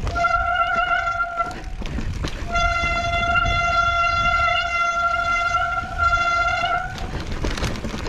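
Wet mountain-bike disc brakes squealing under braking: a short, steady high-pitched squeal at the start, then a longer one lasting about four seconds, over low rumbling noise. The squeal comes from brakes still wet from rain.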